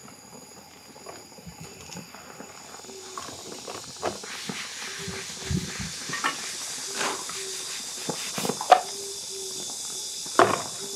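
A thin egg sheet sizzling in a frying pan, a steady hiss that begins a couple of seconds in, with scattered knocks and scrapes from the spatula and from the pan being lifted and set back on the metal grill grate.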